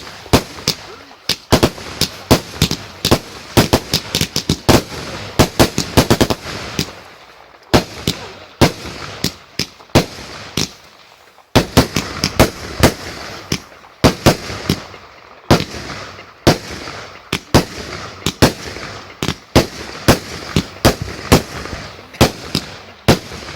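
Firework display: a rapid run of loud aerial shell bursts and bangs, several a second, with crackling between them and brief lulls about seven and eleven seconds in.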